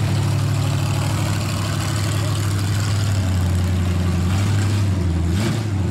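Engine of a lifted pickup mega truck running at a low, steady speed, with a short rise in revs near the end.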